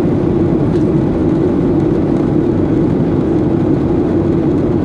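Steady cabin noise inside a Boeing 737-800 during descent: the CFM56 engines' drone mixed with the rush of air past the fuselage, heard as an unchanging low hum.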